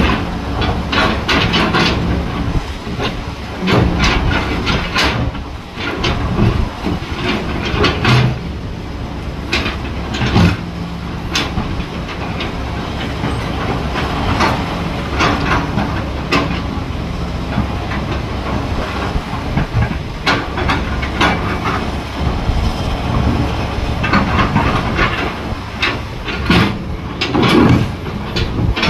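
Tracked excavator at work: its diesel engine running steadily under load, with frequent metal clanks and knocks spread through, over a steady hiss.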